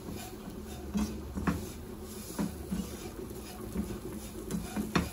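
Utensil stirring a thick butter-and-flour roux in a wok on low heat, with irregular light taps and scrapes against the pan.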